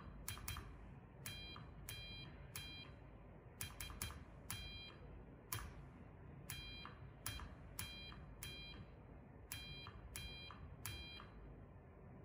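Morse code tapped out on a hand telegraph key: the key clicks on each press and sounds a short high electronic beep, in uneven groups of dots and dashes. They spell the letters I, L, O, V, E, Y, O.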